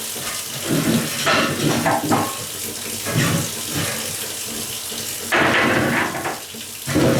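Wet scrubbing of a kitchen floor by hand, in irregular strokes of varying length, the longest and loudest a little after five seconds in.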